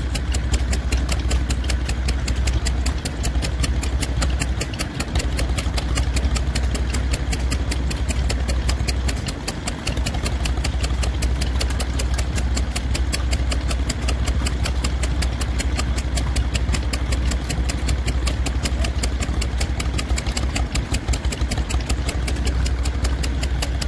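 Ruston stationary engine running steadily with a fast, even beat.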